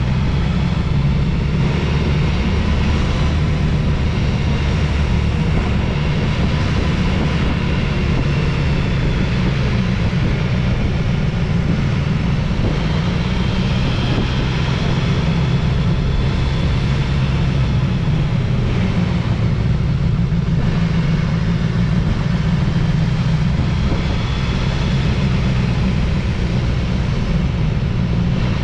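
Motorcycle engine running steadily under way, with wind and road noise on the microphone.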